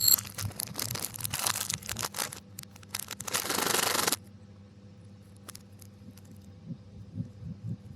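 Snack packaging crinkling and tearing, played in reverse: a run of sharp crackles over the first two seconds, then a long rip that cuts off abruptly about four seconds in, leaving only faint rustles.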